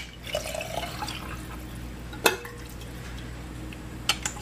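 A few sharp, light clicks over a faint steady background hum: one about two seconds in and two close together near the end.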